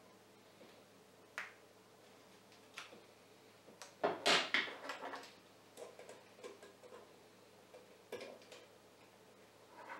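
Metal clicks and knocks as a steel shaft and its mounted bearing are handled on a wooden workbench. The loudest is a cluster of knocks about four seconds in, followed by a run of lighter ticks while a small hand tool works at the bearing.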